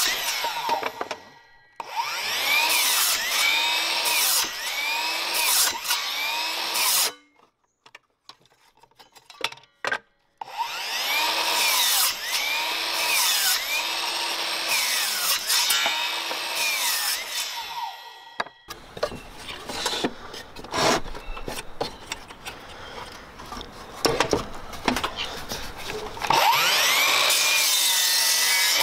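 Metabo KGS 18 LTX 216 cordless 18 V sliding mitre saw running and its 216 mm blade cutting through timber boards in three spells. During the cuts the motor's whine dips and recovers repeatedly. Between cuts there is a short quiet gap and then a stretch of light clatter and knocks from handling the wood.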